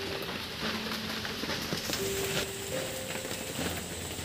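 A metal spoon scraping and pressing a sticky sesame mixture across a steel plate, with faint clinks against the metal. Behind it is a steady background hiss, and several short steady hums sound at different pitches, each about a second long.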